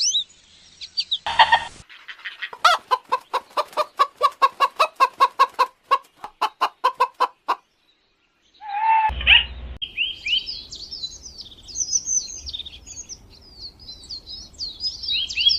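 Bird calls in several separate segments. High chirping comes first, then a fast run of short, evenly repeated calls, about four a second, lasting some five seconds. A single loud call follows about nine seconds in, then more high, busy chirping.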